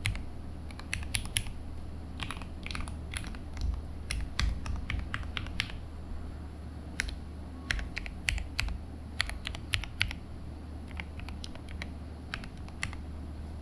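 Typing on a Zuoya GMK104 mechanical keyboard: irregular keystrokes coming in quick runs, with short pauses between them.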